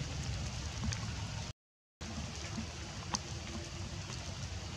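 Steady outdoor background noise with a low rumble and a few faint ticks, broken by about half a second of dead silence a second and a half in, where the video cuts.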